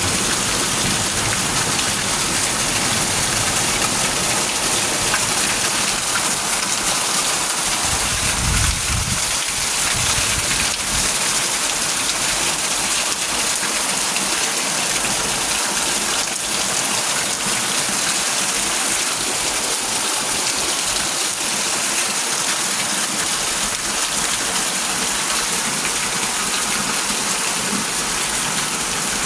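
Steady rain falling, an even, unbroken hiss of rain on surfaces.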